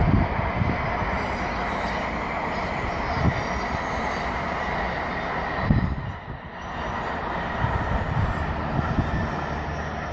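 Shinkansen high-speed train running: a steady rushing rail noise with occasional low thumps, dipping briefly about six seconds in before picking up again.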